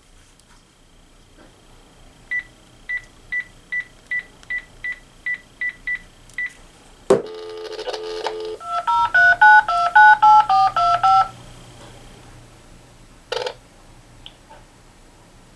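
Panasonic KX-TG6521 cordless phone base being dialled: eleven short keypad beeps as the number is entered. Then a click as the line is picked up on speakerphone, a brief dial tone, and a quick run of DTMF touch tones as the phone dials the number out.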